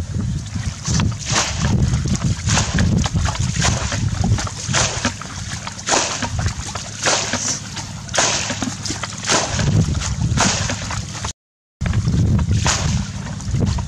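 Muddy water being bailed with a plastic bucket: repeated scoops and splashes, about one or two a second, broken by a brief silence about three-quarters of the way through.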